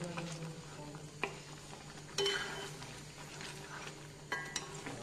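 Wooden spoon stirring a thick, sticky pickle mixture in a nonstick pan, with a few sharp knocks of the spoon against the pan about one, two and four seconds in, over a low steady hum.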